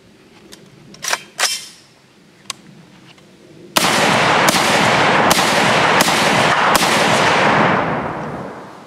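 Palmetto State Armory AR-10-style .308 semi-automatic rifle fired five times in steady succession, about one shot every three-quarters of a second. Each shot echoes, and the echo dies away over a second or so after the last shot.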